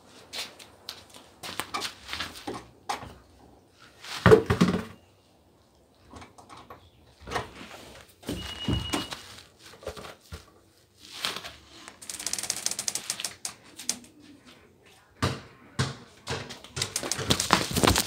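Irregular knocks, clicks and rustling, with one loud thump about four seconds in and a short high tone about halfway through.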